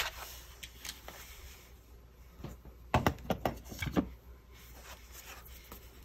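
Handheld paper-craft corner punch clicking through card, with light paper handling: a sharp click at the start, then a quick run of clicks and taps about three to four seconds in.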